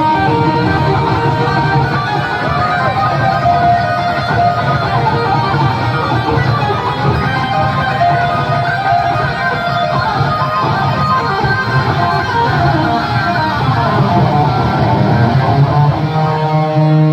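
Live instrumental rock played by a full band: a lead electric guitar plays a melodic line full of string bends and vibrato over bass and drums. Near the end the band moves onto long held notes.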